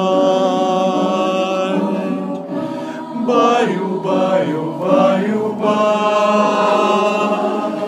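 A group of voices singing together in several parts, holding long notes near the start and again in the second half.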